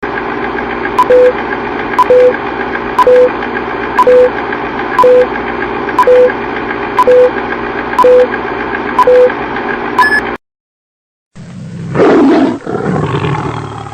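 A steady hum with a short electronic beep and click about once a second, nine times, cut off abruptly after about ten seconds. After a second of silence comes a loud roar.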